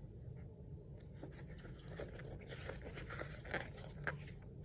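Faint rustling of a picture book's paper pages being handled, with a few light clicks, over a low steady hum.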